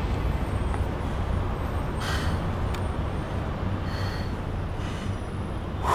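Steady low vehicle rumble, with a few soft hisses about two, four and five seconds in.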